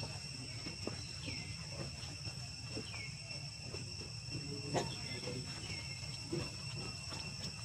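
Steady high-pitched drone of insects, with a few short falling chirps and scattered light clicks and taps. A sharper knock comes near the five-second mark.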